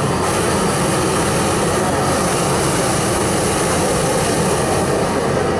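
Hot-air balloon's propane burner firing in one long, steady blast of flame into the envelope, shutting off at the very end.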